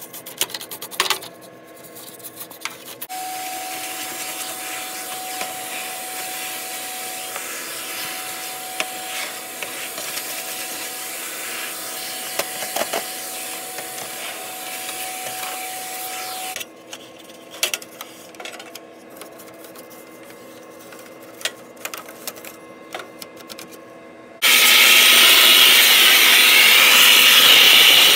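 Printer cleaning: plastic parts clicking and knocking as they are handled, and a vacuum cleaner running steadily for about thirteen seconds with a thin whine. About three and a half seconds before the end, a much louder rush of air starts suddenly as the cleaning nozzle works at the open paper path.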